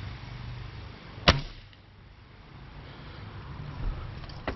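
Ruger Blackhawk .177 spring-piston break-barrel air rifle firing a single shot about a second in, a sharp crack with a brief tail. A fainter sharp click follows near the end.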